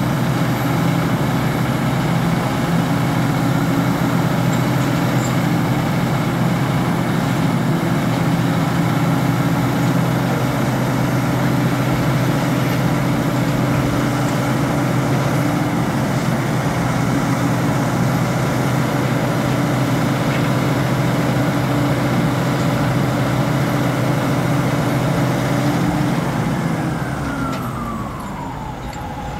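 Diesel engine of a large tracked BZI Xtreme telehandler running steadily; near the end its note falls and the sound eases off.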